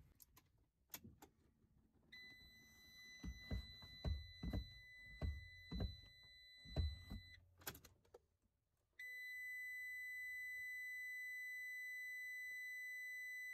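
Faint steady high electronic tone from the Ram ProMaster's dashboard while the oil-change reminder is being reset, with a series of soft thumps as the gas pedal is pressed. The tone stops, and a second steady tone of the same pitch starts about nine seconds in.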